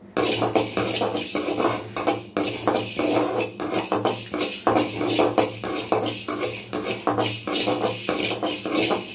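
Perforated metal spatula scraping and clattering against an aluminium kadai in rapid repeated strokes while stirring black peppercorns and fenugreek seeds as they dry-roast.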